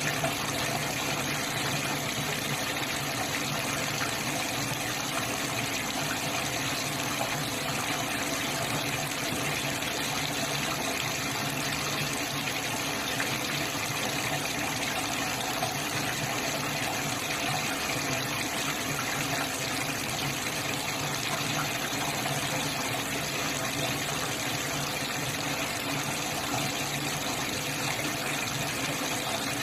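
Water pouring in a steady stream from an open wall-mounted tap: the supply pipe draining out after the tank valve has been shut off.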